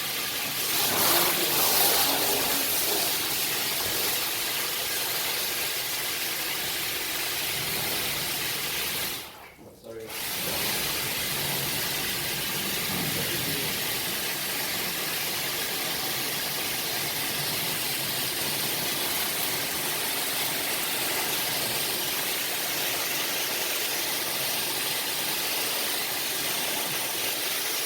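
High-pressure cleaner spraying a water jet with a steady hiss, dropping away briefly about nine seconds in and then resuming.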